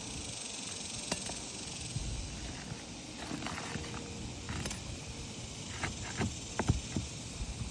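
Hand work on old asphalt roof shingles: scattered scraping and several sharp clicks and knocks as shingles are unsealed and nails are worked loose, a cluster of knocks near the end, over a steady high hiss.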